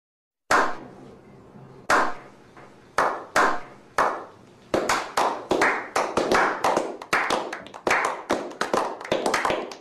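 A slow clap by a small group: single hand claps about a second apart, starting half a second in, then more people join and the clapping speeds up into quick, overlapping applause.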